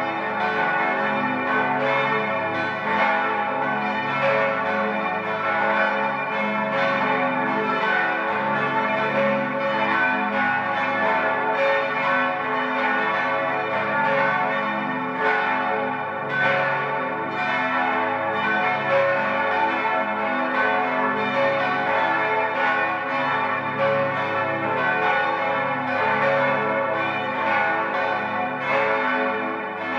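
Five church bells of the Archabbey of St. Ottilien, tuned a°, c♯', e', f♯' and a', ringing together, their strokes overlapping continuously in an unbroken peal.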